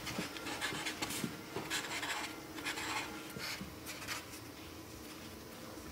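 Pen scratching across paper in quick, irregular strokes, a contract being signed; the strokes thin out after about four seconds.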